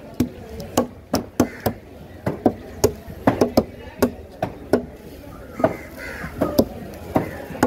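Large curved fish knife chopping through barracuda head and bone pieces onto a wooden cutting table: a fast, irregular run of sharp blows, about two to three a second, some in quick pairs.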